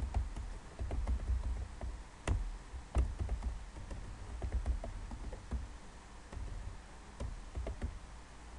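Computer keyboard typing: irregular keystroke clicks, with a couple of harder strikes about two and three seconds in.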